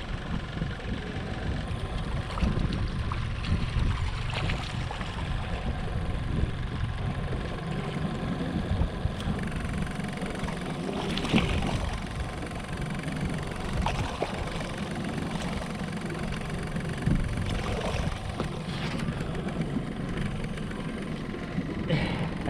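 Motorboat engine running steadily, with a few brief higher noises scattered over it.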